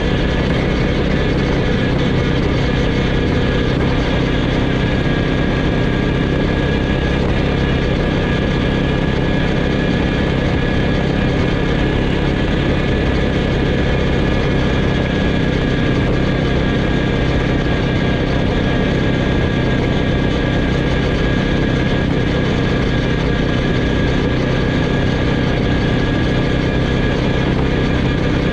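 Quad bike (ATV) engine running at a steady speed while riding, close to the microphone, with an even pitch that does not rise or fall.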